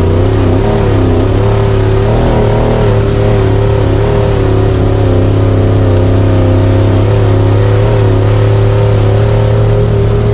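Honda Talon side-by-side's 999 cc parallel-twin engine running loud and steady, its pitch wavering a little with the throttle in the first few seconds and then holding steadier.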